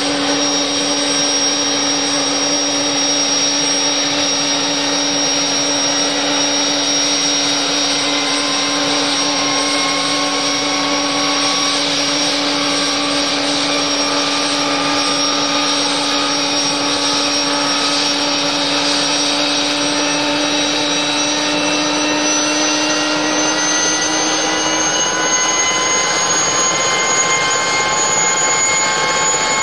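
Turbine engine running with a steady whine over a rushing noise. Several of its tones climb slowly in pitch through the second half, as the engine speeds up, while a lower hum fades out near the end.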